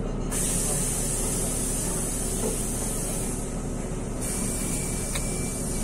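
Inside a NefAZ 5299 city bus standing or creeping: a low steady engine drone under a steady high hiss of air. The hiss breaks off briefly about three and a half seconds in and then returns, and a faint steady high tone joins about four seconds in.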